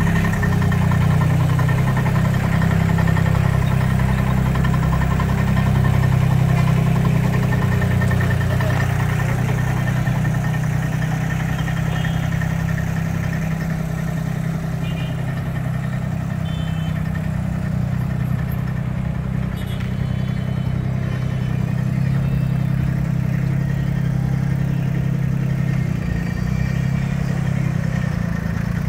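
Mini tractor's diesel engine running steadily under light load as the tractor moves across a yard. It is a little louder in the first several seconds, then settles.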